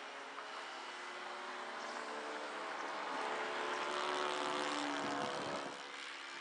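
Laser 70 four-stroke glow engine of a 60-inch radio-controlled FW 190 A-4 scale model in flight, running steadily. Its note grows louder, then falls in pitch a little after five seconds in and fades.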